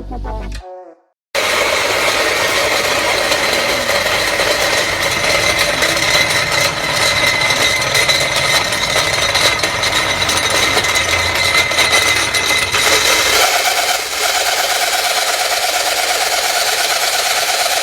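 A 1.5 hp peanut grinder running, a loud steady mechanical grinding noise with a whining tone. About 13 seconds in the sound changes: the low rumble drops away and a steadier, thinner whine remains.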